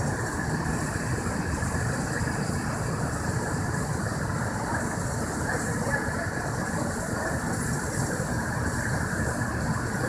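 Steady rumbling street noise heard from several storeys up, with heavy trucks idling on the street below.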